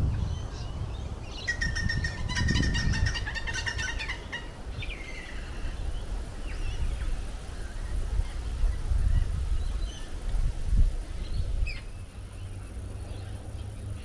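Bird song: one bird gives a rapid, trilling, multi-note phrase from about one to four seconds in, followed by a shorter call and a few faint chirps later, over low wind noise on the microphone.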